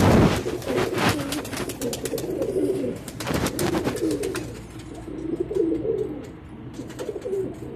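Domestic pigeons cooing, several low, warbling coos overlapping throughout. A few sharp clicks in the first second and again about three and a half seconds in.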